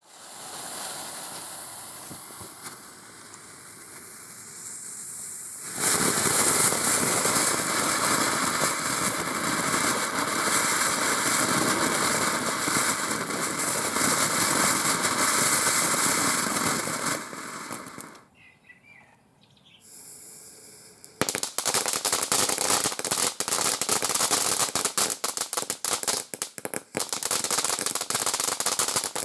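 Small category F1 ground fountains. The first hisses quietly at first, then loudly and steadily from about six seconds in, dying away after about seventeen seconds. After a short lull, a second fountain sets off dense, rapid crackling from about twenty-one seconds in.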